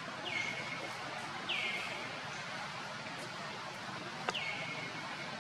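Infant long-tailed macaque crying: three short, high-pitched calls, each sliding down in pitch and then held briefly, about a third of a second in, at about a second and a half, and about four seconds in. The third opens with a sharp click, over a steady outdoor hiss.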